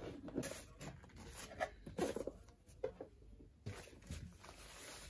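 Hand-handling of unboxing packaging: a wrapping sheet rustled and crinkled as it is unwrapped, with small irregular knocks and clicks of accessories and cables picked up from a wooden desk.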